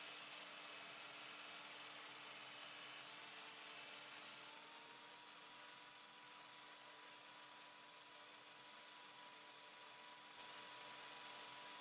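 Electric drill in a drill stand spinning a sanding drum, with a steady motor whine. About four and a half seconds in, the whine rises slightly in pitch and holds as the insulation pad cleaning the sandpaper comes off the drum and the load eases.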